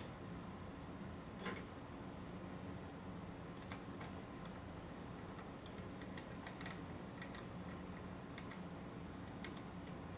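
Scattered light clicks and ticks of small screws and a screwdriver being handled against a mini PC's case, over a faint steady hum.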